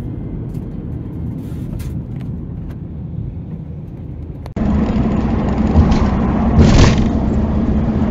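Steady road and engine noise from inside a vehicle's cab moving along a motorway. About halfway through it cuts abruptly to a louder recording with a steady low hum.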